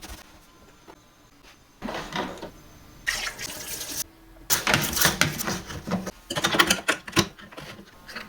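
Running water splashing in uneven bursts, starting and stopping several times, loudest for a few seconds in the second half.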